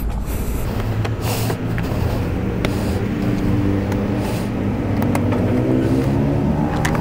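A vehicle engine running steadily at low revs, its hum strengthening after about two seconds. A few sharp clicks come from a screwdriver working the plastic fasteners of a scooter's floor panel.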